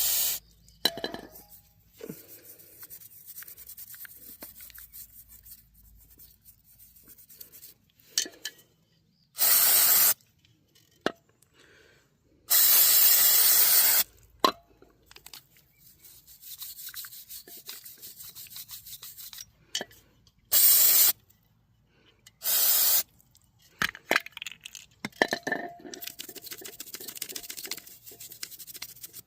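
Aerosol brake cleaner sprayed onto a motorcycle brake caliper in several hissing bursts, one of them about a second and a half long. Between the bursts there is quieter rubbing and small metal clinks as the part is handled.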